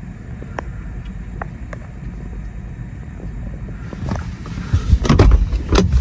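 Road noise inside a moving hybrid car: a steady low rumble of tyres on a wet road. About four seconds in, loud gusts of wind start buffeting the microphone.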